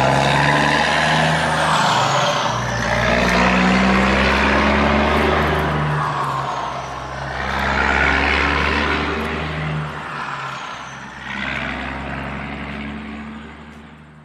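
Heavy truck engine running, swelling and easing several times, then fading out near the end.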